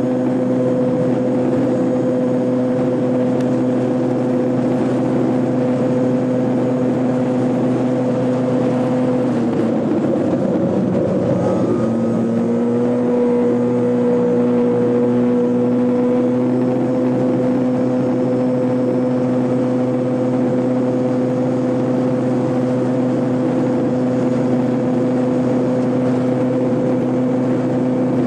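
Piaggio Zip 50 scooter engine running at steady revs, holding one even note. About ten seconds in the note drops and wavers for a couple of seconds, then comes back to the same steady pitch.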